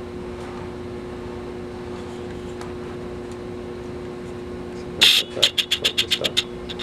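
A steady low hum, then about five seconds in a short scrape followed by a quick run of sharp clicks, about eight a second, as a control on a Polaroid Big Swinger 3000 camera is worked by hand.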